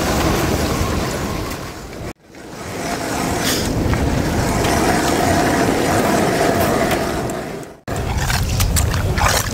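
Wind buffeting the microphone over open sea ice, a steady rushing rumble. It drops abruptly to silence about two seconds in, fades back up, and cuts out again near the end.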